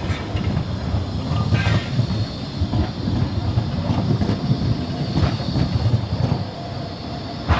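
A rail vehicle, a tram or train, rolling past with a steady low rumble and scattered clanks from the wheels on the track, with a sharp knock near the end.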